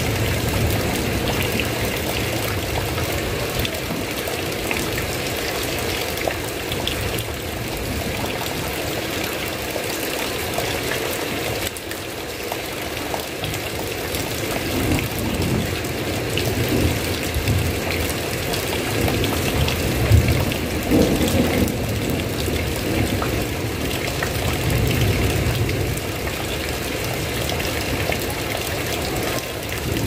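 Steady rain falling on a roof, an even hiss of drops, with a low rumble that swells and fades now and then.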